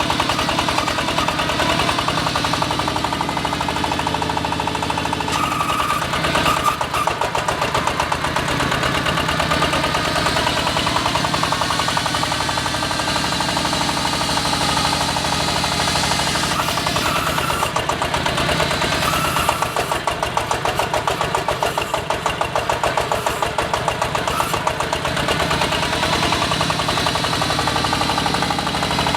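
Diesel engine of an AKL-150Y hydraulic water well drilling rig running steadily with a fast knocking beat. The beat pulses more unevenly for a few seconds past the middle.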